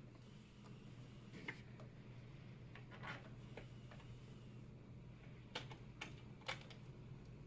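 Faint scattered clicks and taps of small cooler mounting hardware being handled and pushed onto a motherboard back plate, with a cluster of three sharper clicks near the end, over a low steady hum.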